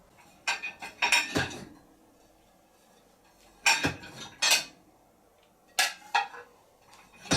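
Plates clinking against each other and the dishwasher rack as they are handled, in four short bursts of clatter with quiet gaps between.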